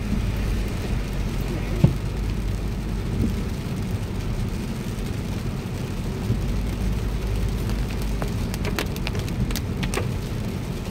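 Steady low rumble of a car driving on a wet road, heard from inside the cabin, with scattered sharp ticks of raindrops hitting the windshield that come more often near the end.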